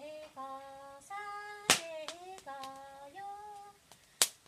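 A Hmong woman singing unaccompanied, holding long notes that step and slide from one pitch to the next. Two sharp cracks cut in, one about a second and a half in and one near the end.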